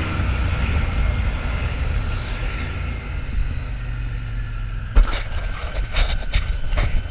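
Royal Enfield Shotgun 650's parallel-twin engine running steadily under riding, a low rumble with the rush of the ride, broken by several sharp knocks about five seconds in.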